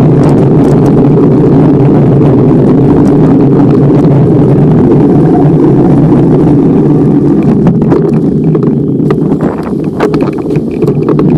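Wind rushing over the microphone of a camera riding on a moving bicycle: a loud, steady rumble. It eases and breaks up for a couple of seconds near the end.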